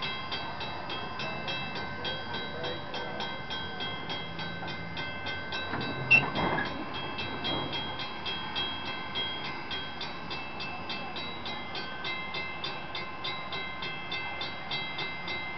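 Five steam locomotives moving slowly past at close range, with a steady patter of short strokes at about four a second over a steady high whine. A single sharp bang about six seconds in is the loudest sound.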